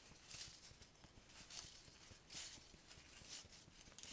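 Faint, irregular rustles of a crepe paper streamer being pressed and puckered by hand onto double-sided craft tape.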